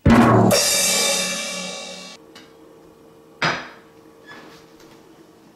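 Rimshot-style joke sting on a drum kit: quick drum hits and a cymbal crash that rings for about a second and a half and is cut off abruptly. About three and a half seconds in comes a single short clink.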